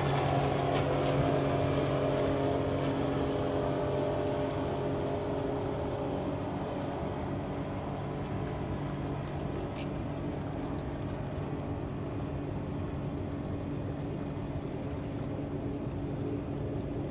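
Low, steady engine drone from a cargo ship and the small boat alongside it: a hum of a few steady tones that slowly grows fainter.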